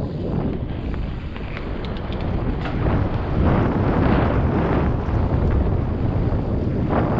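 Wind buffeting a helmet camera's microphone as a mountain bike rolls fast down a dirt forest trail, with steady tyre rumble and a few sharp rattles over the first few seconds.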